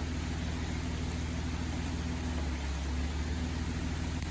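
Jeep Wrangler JK engine running steadily at low revs, with a slight swell in the low hum a little past halfway.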